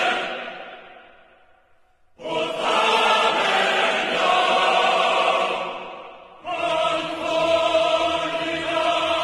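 A choir singing long held chords in three phrases. The first fades away, and the next two start suddenly, the last one cutting off abruptly.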